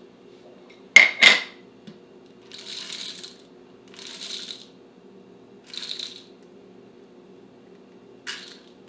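Whole coffee beans rattling into the hopper of a hand coffee grinder in three short pours, after two sharp clicks of the unit's parts about a second in. A faint steady low hum runs underneath.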